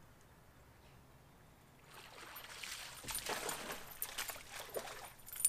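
A small hooked bass splashing and thrashing at the water's surface as it is reeled in to the boat. Irregular splashes start about two seconds in and grow louder toward the end.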